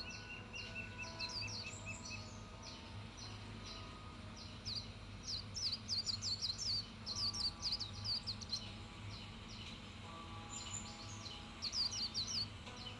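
Birds chirping: quick runs of short, high, sweeping chirps that come in bunches, loudest around the middle and again near the end, over a steady low hum.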